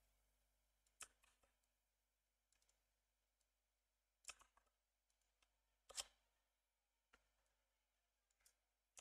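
Near silence broken by a few faint, isolated clicks of a computer keyboard and mouse, the clearest about a second in, then just past four seconds and at six seconds.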